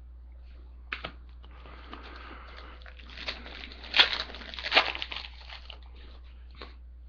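Foil wrapper of a trading-card pack being torn open and crinkled, rustling irregularly with its sharpest tears about four and five seconds in.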